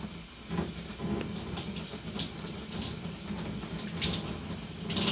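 Sink tap running steadily while a washcloth is wetted under the stream, with irregular splashes.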